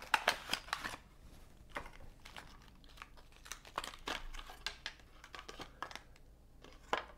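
Hands crinkling a small clear plastic packaging bag and handling small parts, with a quick run of crackles at the start, then scattered light clicks and rustles and one sharper click near the end.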